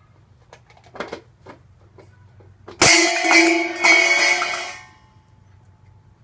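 Light taps and pattering of puppy paws, then about three seconds in a sudden loud metallic clang that rings and rattles for about two seconds, with a second strike about a second after the first. It is a noise made on purpose to test whether the puppies startle.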